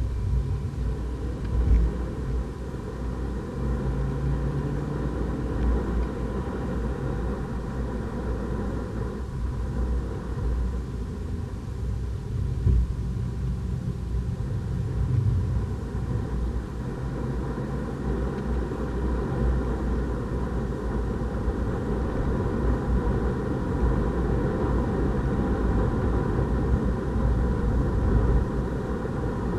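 Renault Clio RS 200 EDC's turbocharged 1.6-litre four-cylinder heard from inside the cabin at track speed, under a heavy rumble of road and tyre noise. The engine note rises and falls a little through the corners.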